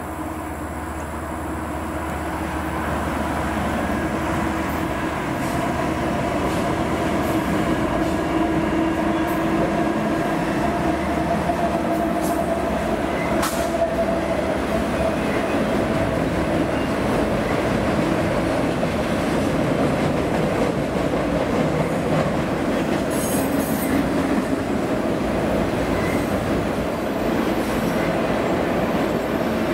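Freight train rolling past, its cars' wheels running on the rails; the sound grows louder over the first several seconds, then holds steady.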